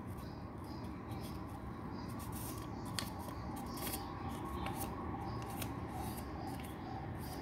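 Small square sheet of origami paper being folded in half and creased by hand: scattered crisp paper rustles and light ticks, with a sharper tick about three seconds in.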